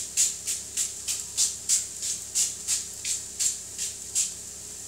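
Frylight pump-action cooking oil spray being pumped over and over: quick hissing spritzes about three a second, stopping a little before the end.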